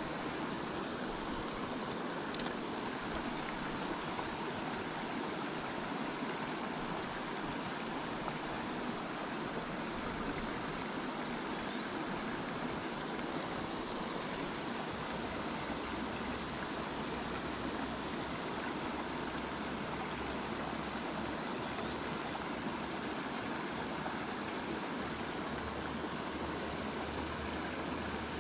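Steady rushing noise of running stream water, with one sharp click about two seconds in.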